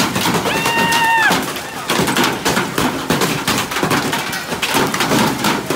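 Large hailstones pelting a patio: a dense, continuous clatter of hard hits. About half a second in, a person cries out on one held, high note for under a second.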